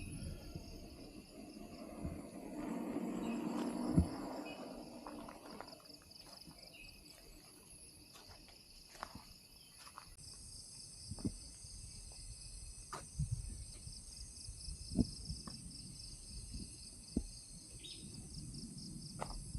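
Insects trilling steadily in a high, pulsing buzz, with a second, higher-pitched insect joining about ten seconds in. Scattered knocks and crunches of footsteps on the trail, with a louder rustle about three to four seconds in that ends in a knock.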